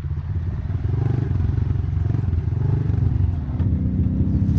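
Dirt bike engine running under riding load on a dirt trail, its note rising and falling with the throttle, easing off about three and a half seconds in and picking up again near the end.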